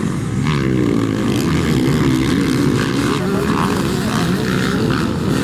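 Motocross dirt bike engine revving hard under load, its pitch rising and falling as the throttle is worked.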